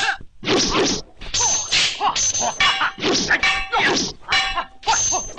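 Swords clashing in a staged film fight: a quick run of about six metallic clangs, each ringing briefly, mixed with sharp whacks.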